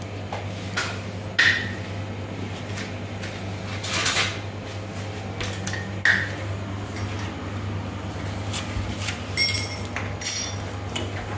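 Scattered light clicks and clinks over a steady low hum.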